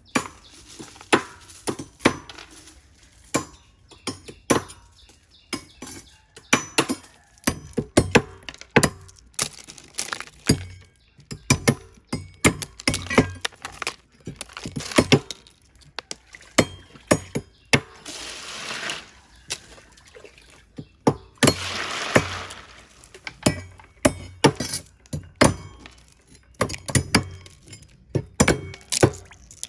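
Cleavers chopping the pointed tips off small sea snail shells on a wooden board: irregular sharp chops and knocks. Loose shells clink and rattle as they are tossed into a plastic basin and scraped across the board, with a few longer rattling stretches.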